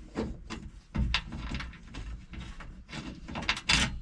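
Irregular knocks, clicks and scraping as a truck's dashboard instrument panel is worked loose and pulled down on its bottom hinge, with a louder clatter near the end.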